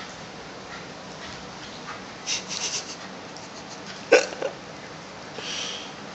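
Shiba Inu and Japanese Spitz play-fighting: a quick run of short scratchy sounds a little past two seconds in, then one sharp yip about four seconds in with a smaller one right after, and a short breathy snuffle near the end.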